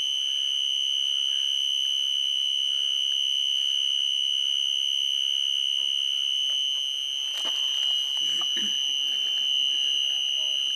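An electronic alarm sounding one steady, unbroken high-pitched tone, with a faint click about seven and a half seconds in.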